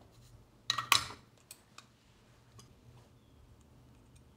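A short metallic clatter about a second in, then a few light ticks, as a soldering iron is handled at the bench while speaker wires are soldered.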